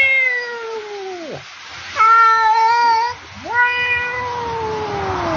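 A man imitating a cat with long drawn-out meows. The first call trails off and falls in pitch about a second in, then two more long meows follow, the last one sliding down in pitch as it ends.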